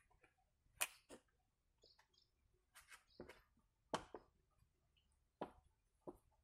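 Faint, irregular sharp crackles and ticks from a soft plastic cooking-oil pouch as it is squeezed and tipped to pour oil into an engine's oil filler opening, about seven in all.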